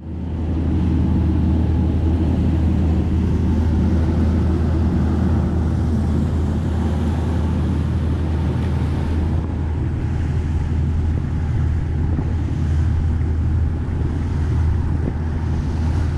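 Small motorboat running at speed: a steady low engine drone, with water rushing along the hull from the wake.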